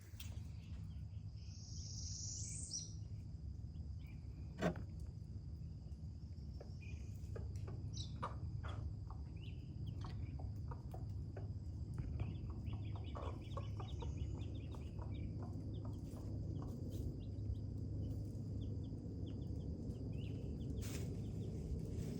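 Backyard hens clucking, with a fast run of calls a little past the middle. Wild birds chirp now and then over a steady high insect drone.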